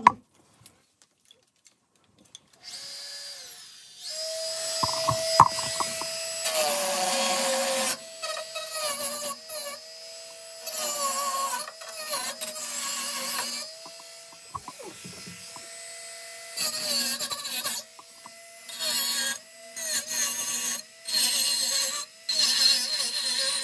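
Corded handheld rotary tool (Dremel-style) spinning at high speed with a steady whine, spun up about three seconds in, then pressed against the car's sheet-metal floor pan in repeated short passes. Each pass adds a gritty, hissing grind and pulls the motor's pitch down under load.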